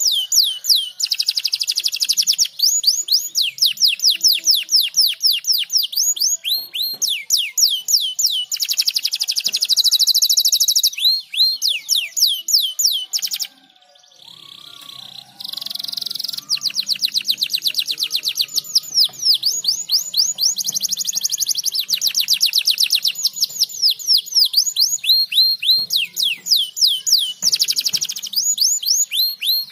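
Domestic canary singing long, rapid trills and rolls of quickly repeated high notes. The song breaks off briefly about halfway through, then starts again.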